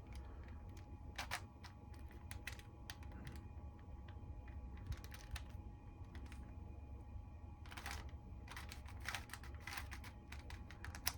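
Plastic clicks and clacks of a Rubik's cube's layers being twisted by hand, coming in irregular runs, with a faint steady hum underneath.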